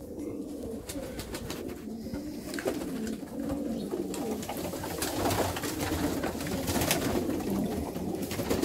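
A loft full of vouta pigeons cooing together, with scattered sharp clicks among them, growing a little louder toward the end.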